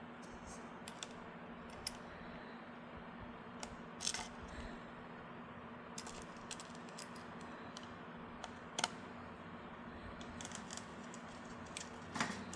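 Scattered small metallic clicks and taps from a screwdriver and adapter driving a motherboard standoff into a tight thread in a steel PC case, with a flurry of clicks near the end.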